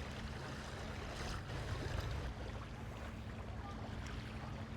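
A boat's engine running steadily nearby, an even low drone.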